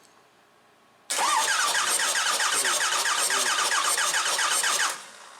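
Starter motor cranking a Ford 6.0 Power Stroke diesel V8 during a compression test, starting about a second in: an even beat of about six compression strokes a second for roughly four seconds, the engine not firing, then the cranking stops. The tested cylinder comes up to just over 400 psi, healthy compression.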